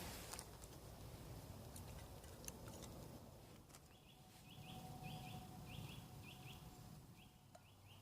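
Faint birdsong over quiet background hush: a small bird gives a run of about ten short, high chirps in quick succession through the second half.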